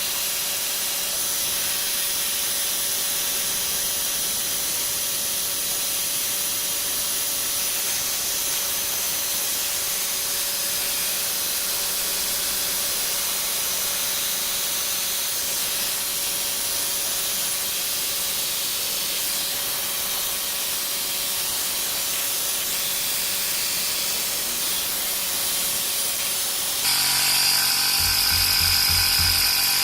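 Workzone Titanium 20 V cordless air compressor running steadily as it pumps up a flat tyre, a motor whine with a hiss of air. About 27 seconds in it gets louder and changes pitch.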